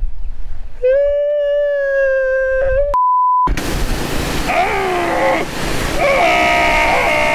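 A man screams a long, high, held note, broken off by a short censor bleep; then, over the steady hiss of a pressure-washer jet, he lets out more drawn-out yells and groans, the last one long and sliding down near the end.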